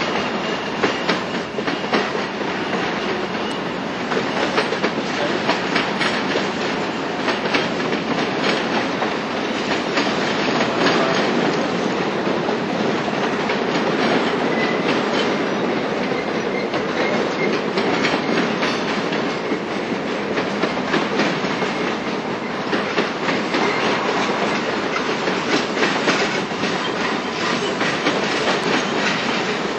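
A long freight train rolling steadily past, its wheels clicking continuously over the rail.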